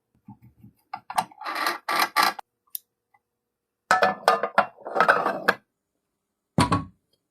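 Restored hand coffee grinder being handled and worked: a run of clicks and short crunching, scraping bursts in two groups, then a single heavier thump near the end.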